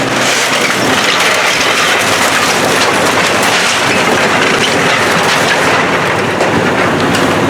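Building demolition: continuous crunching and clattering of breaking debris, full of small cracks and knocks.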